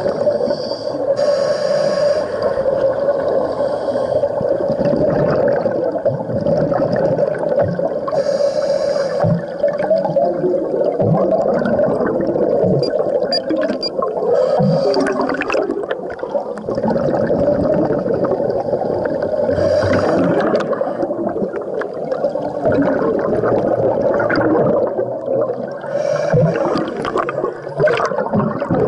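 Scuba regulator breathing heard underwater: exhaled air bubbling out in hissing, gurgling bursts about every six seconds, five times, over a steady hum.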